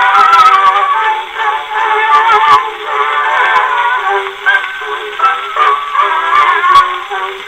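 Edison Blue Amberol cylinder record playing on an Edison Standard Model D cylinder phonograph: an early acoustic recording of a song with singing, thin and narrow in tone, with scattered clicks of surface noise.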